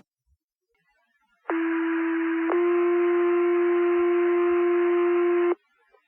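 Two-tone sequential paging tones over a fire dispatch radio channel: a steady tone for about a second, then a second tone held for about three seconds, over radio hiss, then cut off abruptly. These are the alert tones that set off the firefighters' pagers for the call.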